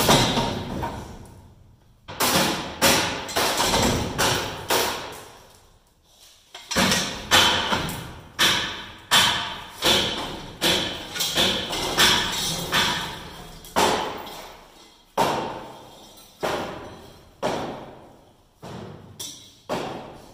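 Repeated metal-on-metal blows on the rear beater shaft of a Massey Ferguson combine, driven through a long steel bar to knock the shaft and beater loose. The blows come about one to two a second, each with a short ring, with a brief pause about six seconds in.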